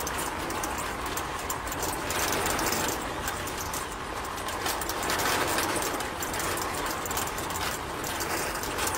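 Small battery-powered DC motor running steadily, turning the water-filled drum of a miniature DIY concrete mixer through a small plastic gear.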